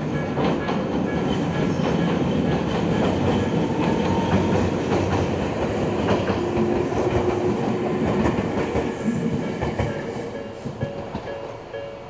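Jōmō Electric Railway train rumbling over a steel girder bridge and past the level crossing, its wheels clattering over the rail joints. The train noise fades about ten seconds in, leaving the crossing's alarm bell ringing in an even repeating pulse.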